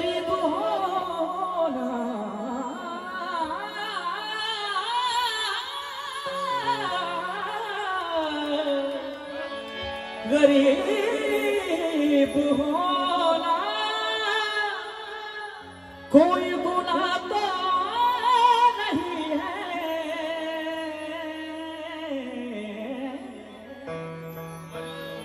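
A voice singing long, wavering, ornamented phrases over a steady instrumental drone, with a new phrase starting sharply about 16 seconds in.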